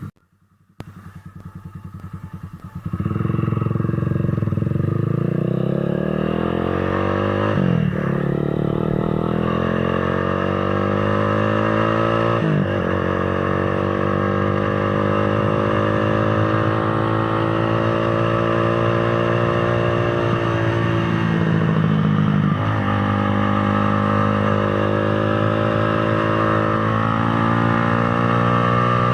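Motorcycle engine pulling away and accelerating through the gears. Its note climbs steadily and drops sharply at each upshift, three times.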